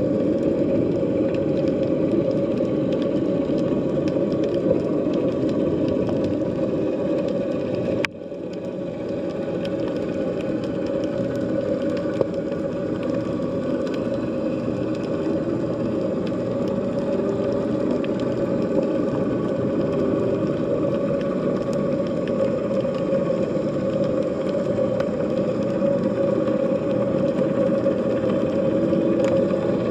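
Underwater sea ambience picked up by a hydrophone: a steady low drone with faint sustained tones above it. The sound drops out sharply about eight seconds in and swells back over a second or two.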